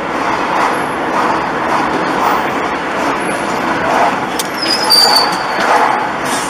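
Steady road and engine noise inside a moving car, picked up by a dashcam microphone, with a brief high-pitched whine about five seconds in.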